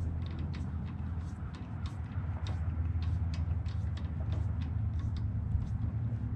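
Breaker bar and socket worked on a bolt on a snowblower engine, giving light metallic clicks at an irregular rate of several a second, over a steady low hum.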